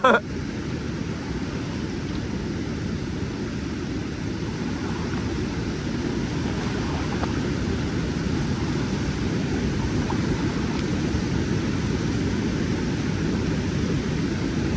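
Steady low rushing noise with no pitch or rhythm, unchanging throughout.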